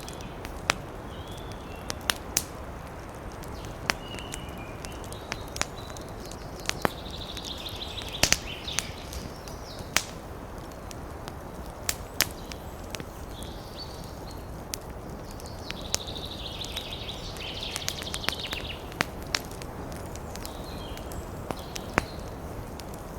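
Campfire of burning wood crackling, with sharp pops every second or two over a steady hiss. Birds chirp and trill in the background several times, the longest run lasting a few seconds near the middle.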